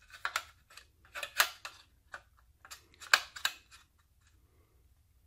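SATA SSD and its sheet-metal drive cage clicking and scraping against each other as the drive is shifted to line up its screw holes, in three short bunches of clicks. The last two bunches are the loudest.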